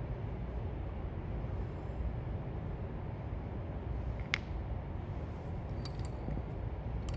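Steady low background rumble, with one sharp click about four seconds in and a few faint clicks near the end as an aluminium sleeve and brush cutter shaft parts are handled.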